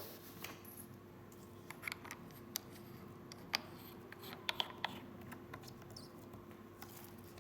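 Faint, scattered small clicks and taps of hands handling a rebuildable tank atomizer and its e-liquid bottle while the tank is being topped up, over a low steady hum.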